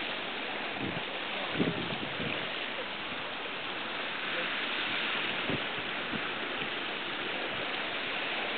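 Steady rushing wash of choppy sea water, with a couple of faint low thumps.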